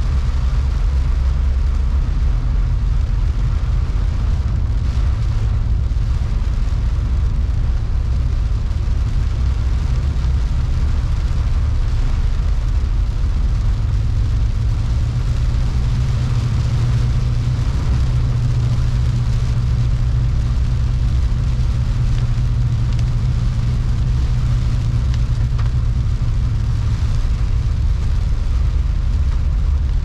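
Steady low rumble of a car driving on a wet road, heard inside the cabin, with heavy rain hitting the windshield and the wipers sweeping across it.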